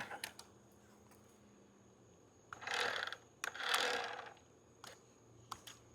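Small plastic-geared electric drive motor of a toy RC fire truck whirring in two short spurts about two and a half and three and a half seconds in, with a few light plastic clicks.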